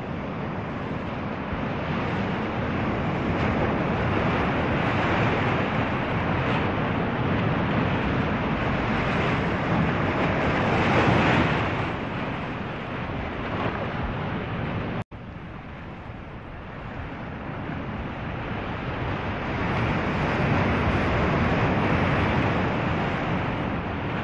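Ocean waves and wind, a steady rushing that swells and eases, cutting out for an instant about fifteen seconds in.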